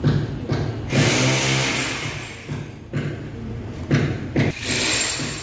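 Knocks and thumps of a round LED floor light fitting being handled and pressed down into its hole in the tiled floor. About a second in, a loud burst of machine noise with a low hum lasts about a second, and a shorter noisy burst comes near the end.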